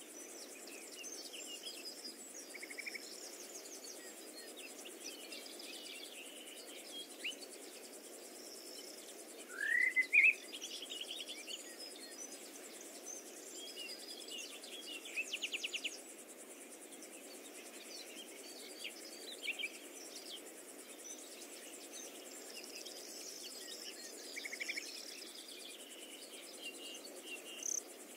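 Outdoor ambience of birds chirping and trilling, with one loud rising call about ten seconds in and a quick trill a few seconds later, over a faint steady background noise.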